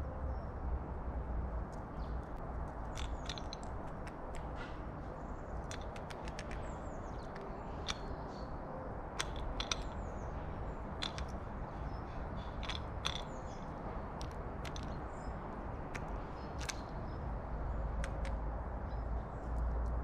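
Carrion crow's beak clicking and tapping on the feeder table and tray as it picks at pieces of shrimp, a scattering of short sharp clicks. Faint chirps of small birds and a steady low rumble run underneath.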